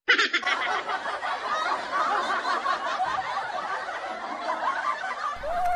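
Laughter of many people, dense and continuous, starting abruptly. Near the end a cat begins one long meow.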